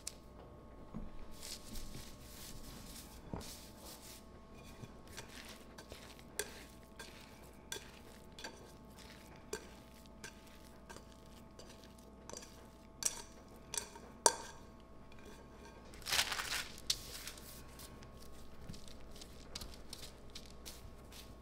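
Scattered clinks, taps and paper rustles of bread dough being handled: flour tapped out of a metal measuring cup onto parchment paper, then sticky no-knead dough tipped out of a glass bowl onto it. A longer rustle comes about sixteen seconds in, over a faint steady hum.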